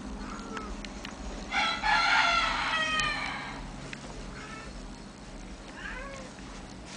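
Kittens meowing: one loud, drawn-out meow falling in pitch about a second and a half in, and a few short, faint mews.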